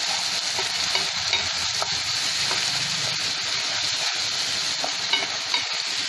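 Onion, capsicum and freshly added tomato purée sizzling in hot oil in a nonstick frying pan while a spatula stirs the mixture. Scattered small scrapes and clicks of the spatula against the pan run over a steady frying hiss.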